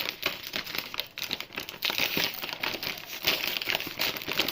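Plastic instant-noodle packet being handled and crinkled, a continuous irregular crackling.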